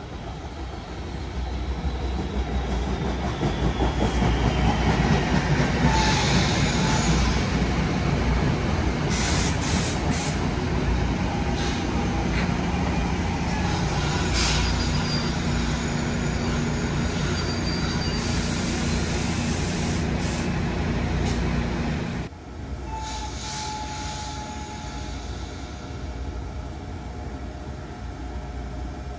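NJ Transit electric commuter train rolling along the station tracks, its wheel and rail noise building over the first few seconds to a loud, steady rumble with brief high squeals from the wheels. About two-thirds of the way in it drops suddenly to a quieter, steady hum.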